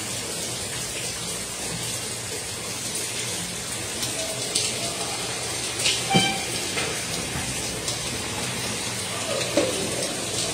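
Steady rain, with water pouring and dripping off a corrugated roof edge; a few sharper drips or splashes stand out in the middle and near the end.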